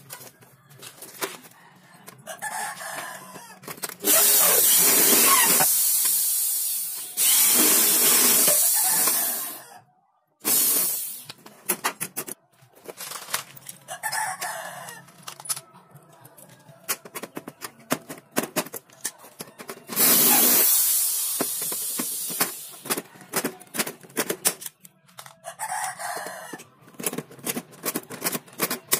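Electric hand drill boring into aluminium window-frame profiles in several loud bursts of a few seconds each, the first about four seconds in and another around twenty seconds, with sharp clicks and snaps of a hand pop-rivet tool and aluminium parts being handled in between. A rooster crows now and then in the background.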